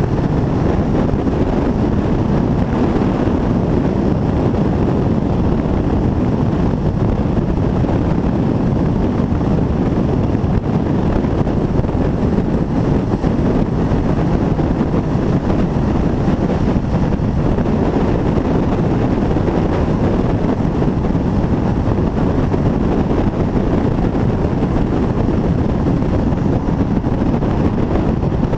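Wind buffeting a microphone mounted on the outside of a moving railcar, over the train's steady running rumble.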